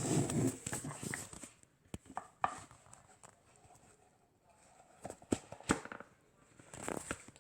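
A series of separate clicks and knocks, several close together at the start, a couple around two seconds in and more near the end.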